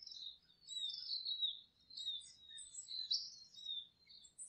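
Birds chirping: a steady stream of short, high-pitched calls overlapping one another.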